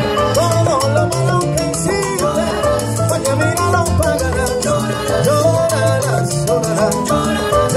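Salsa music played loud over outdoor PA speakers, with a repeating bass line, a melody line and steady percussion.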